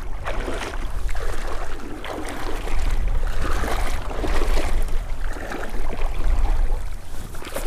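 Rushing, gurgling river current, with a steady low rumble underneath.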